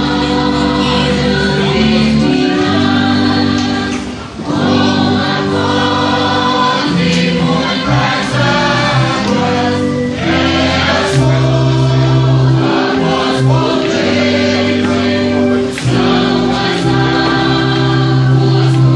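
A congregation singing a hymn in chorus over held chords from a band of wind instruments, with a short break between phrases about four seconds in.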